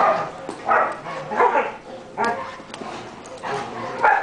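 Dogs barking during play, a string of about six short barks.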